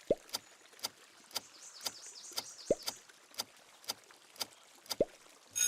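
Clock-like ticking sound effect, about two ticks a second, with a short rising chirp at the start, in the middle and near the end.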